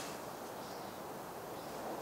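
Quiet, steady outdoor background noise with no distinct event.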